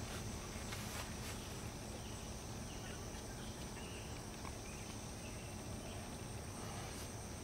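Steady, high-pitched chirring of an insect chorus, with a few faint clicks about a second in.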